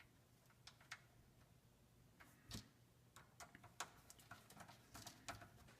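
Faint, irregular clicks and taps of small plastic parts being handled while a replacement fan is fitted into a network switch's chassis.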